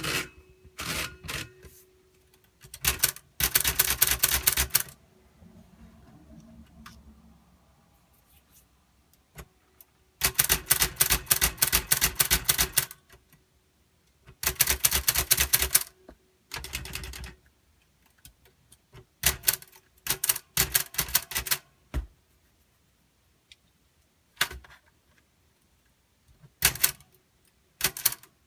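We R Memory Keepers Typecast typewriter keys struck in quick runs of clacks, several bursts of a second or more with short pauses between them.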